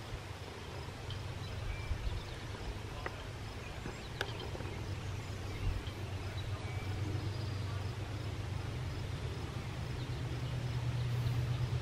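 Low, steady engine rumble of a vehicle, growing louder toward the end, with a faint sharp click about four seconds in.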